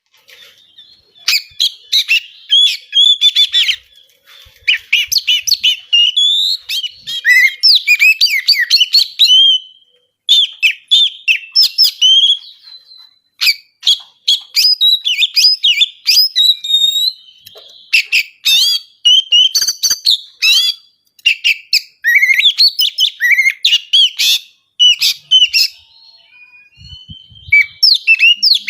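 Oriental magpie-robin (kacer) singing loudly in rapid bursts of varied, quickly sliding whistles and chattering notes, with short pauses between phrases.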